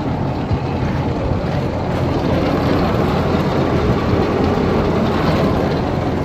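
Logan 40-foot straight belt conveyor running steadily, its small electric motor, believed to be a 2-horsepower three-phase unit, driving the belt: a steady low hum under an even mechanical noise.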